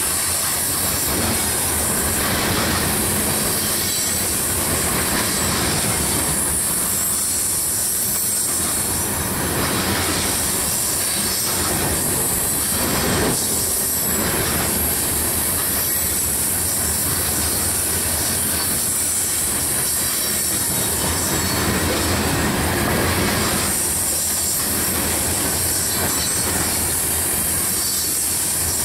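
Coal hopper cars rolling past on curved track, their wheels squealing with a steady high screech from the flanges grinding on the curve, over a running rumble and rail clicks.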